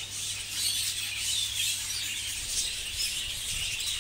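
Many budgerigars chattering and twittering at once in a breeding aviary, a dense, steady high-pitched chirping, over a low steady hum.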